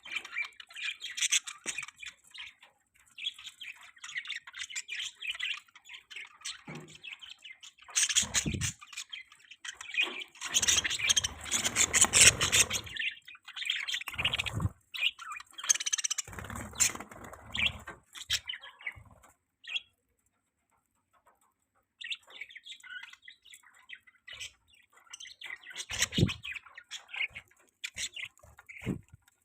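Budgerigars chirping and chattering in a dense stream of short, high calls. Several louder rustling bursts come through in the middle, and the chatter drops out briefly about two-thirds of the way in.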